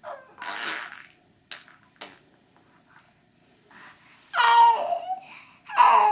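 A pet making fart-like noises: a breathy puff about half a second in, then two louder, pitched, raspy blurts near the end.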